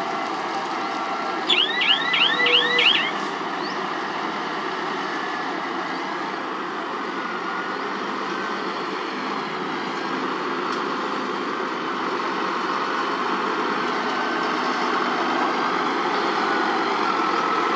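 Heavy loaded dump truck's diesel engine running steadily as the truck manoeuvres and backs up, with a whine that rises over the last few seconds. About two seconds in, a quick run of about six high chirps sounds over it.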